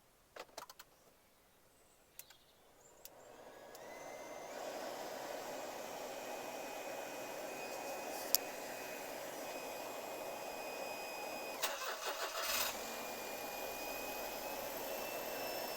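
A few clicks, then an electric fan in a Smart Fortwo 451 spins up about three seconds in and runs steadily with a faint whine. A short cluster of clicks comes about twelve seconds in.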